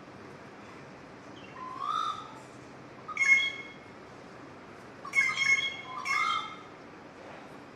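Birds calling in short, harsh squawks every second or two. A lower call that rises and falls comes between them twice.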